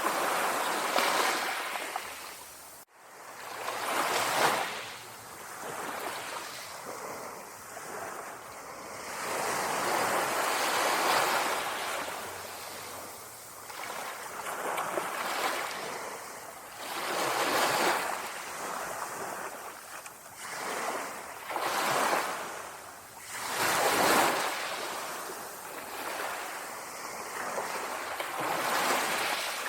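Small sea waves lapping on a shore, each one washing in and fading every few seconds, with a light breeze. There is a brief sudden drop-out about three seconds in.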